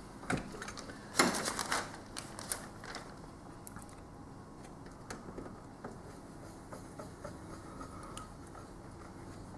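Hand screwdriver working screws into a TV's sheet-metal board cover: a quick cluster of sharp metal clicks and rattles, loudest about a second in, then a few scattered light ticks.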